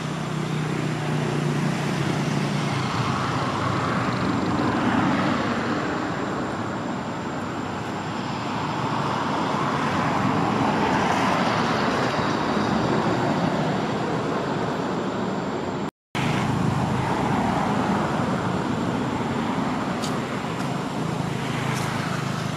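Road traffic going by: a steady rush of passing vehicles that swells and fades every few seconds, cutting out for an instant about two-thirds of the way through.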